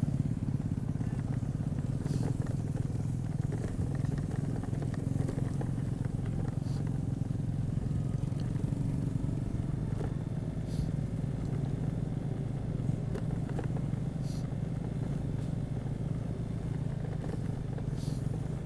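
An engine running steadily at an even speed, with a few faint clicks over it.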